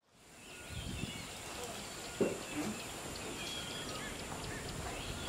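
Outdoor bush ambience fading in over the first second: assorted birds chirping and calling, over a steady high whine, with a single short low thud about two seconds in.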